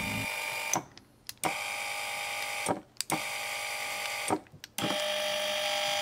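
Firgelli classic linear actuators' electric motors whining as they extend and retract under remote control. They run in four stretches, cutting off in short silences each time a button is released, which shows the remote working in momentary mode. The last stretch runs at a different pitch.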